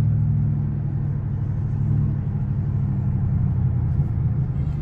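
Chevrolet Silverado's 5.3-litre V8 running at low speed while pulling a loaded trailer, a steady low hum with road rumble that eases slightly about a second in.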